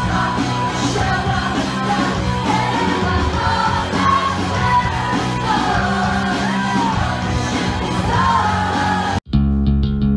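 Live rock band playing loud in a hall: a singer's voice over electric guitar, bass and drums. About nine seconds in it cuts off abruptly and gives way to a cleaner recorded track of plucked guitar and bass.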